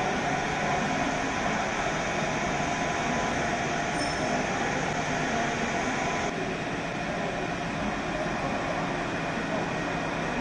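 Steady hum and hiss of an underground railway station hall with double-deck regional trains standing at the platforms. The sound steps down slightly about six seconds in.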